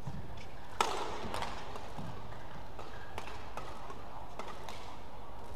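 Badminton rackets striking the shuttlecock in a doubles rally: a series of sharp cracks, the loudest about a second in, with players' footwork on the court over a steady arena hum.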